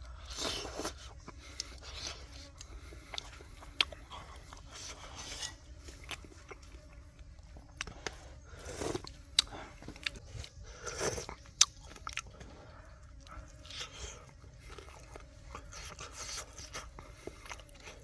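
A person biting and chewing food: irregular crunches and small sharp clicks, loudest around nine and eleven seconds in.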